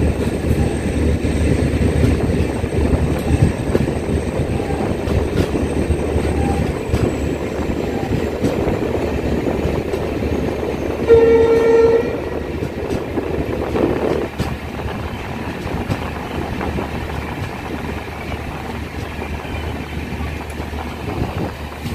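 Shatabdi Express train moving off from a station, its steady running rumble heard from on board the coach, with a train horn sounding once for about a second in the middle.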